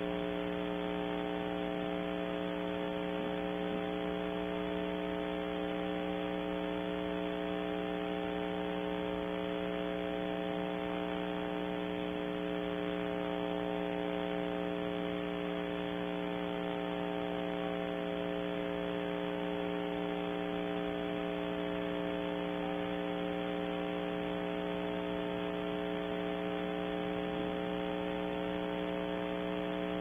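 Steady electrical hum, several level tones over an even hiss, picked up on the nestbox webcam's audio feed. It does not change, and no bird calls are heard.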